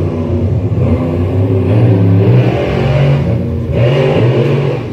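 Two monster truck engines revving hard in a side-by-side race, the engine note climbing in surges, dropping briefly about three and a half seconds in and then picking up again.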